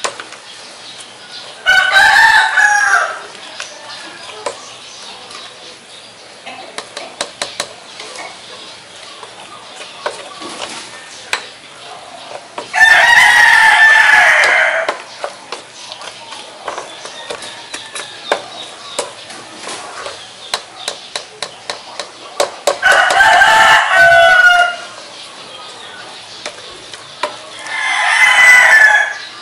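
A rooster crowing four times, each crow lasting one to two seconds and louder than anything else. Between the crows, a potato masher clicks and knocks against a stainless steel pot.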